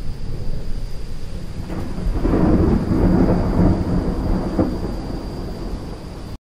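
Thunder rolling over a steady hiss of rain. The rumble swells about two seconds in, fades, then cuts off abruptly near the end.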